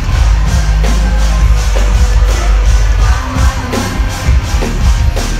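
Live rock band playing loudly over a venue PA, heard from the crowd, with heavy booming bass and a steady drum beat.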